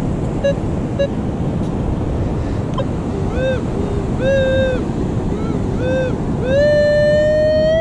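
Metal detector target tones over steady surf and wind noise: two short beeps, then a string of arching tones as the coil is swept back and forth over the hole, then a long held tone that climbs slowly in pitch near the end. The tones signal a buried metal target under the coil.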